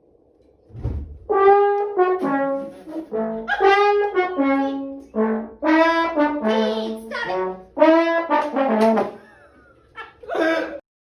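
A brass tune, trombone-like, added as a sound effect: a run of short held notes stepping up and down in pitch, then cutting off suddenly near the end.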